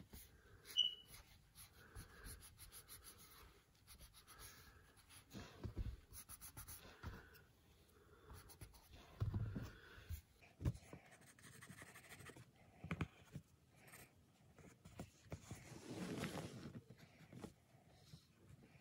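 Faint, irregular scratching and rubbing of an eraser and a graphite pencil on sketch paper, with a few soft bumps.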